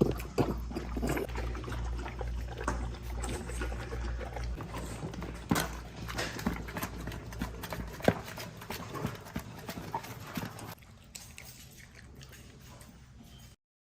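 Dog eating from its bowl: irregular clicks and smacks of chewing and lapping, growing quieter near the end before the sound cuts off.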